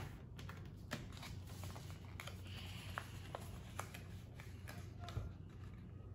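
Paper being folded and creased by hand on a tabletop: faint rustling and scattered small taps over a steady low hum.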